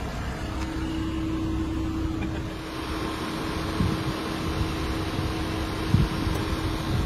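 Corded handheld power tool running steadily, a constant motor hum, with two brief low bumps about four and six seconds in.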